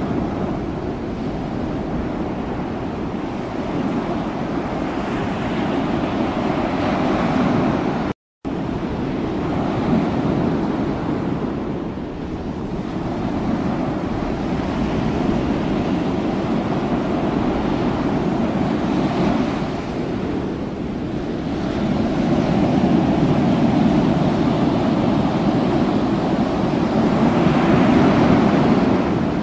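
Wind buffeting the microphone over the wash of the sea, a steady low rushing noise that drops out for a moment about eight seconds in.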